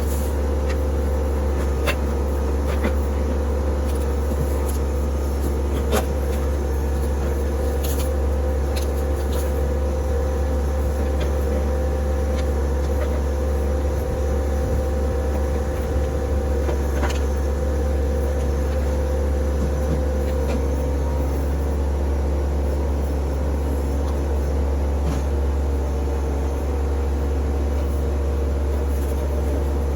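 Compact tractor's diesel engine running steadily at a constant speed, a low hum with a few scattered clicks and knocks.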